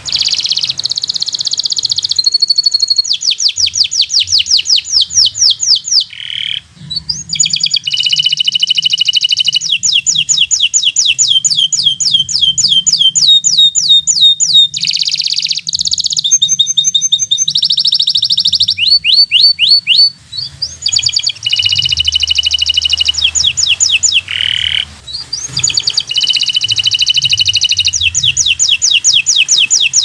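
Local-type domestic canary singing: long, loud phrases of fast repeated high notes and rolling trills, broken by short pauses about six, twenty and twenty-four seconds in.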